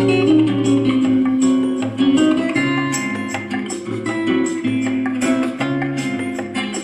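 Guitar music with plucked and strummed notes over a steady bass line, played back through a TG 112 portable Bluetooth speaker during its sound test.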